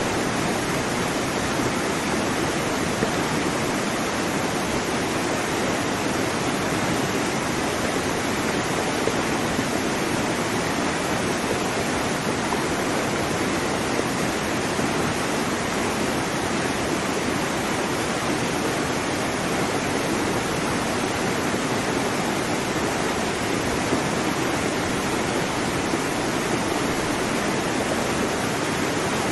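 Waterfall: water falling and splashing onto rocks and into a pool, a steady, unbroken rush.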